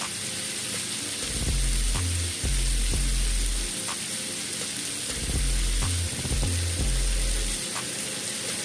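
Chopped garlic and seasoning sautéing in hot butter in a pot, a steady sizzle, under background music with a deep bass line.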